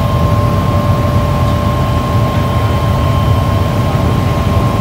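Tour helicopter cabin noise in level flight: a loud, steady low drone of rotor and engine with a steady high whine over it.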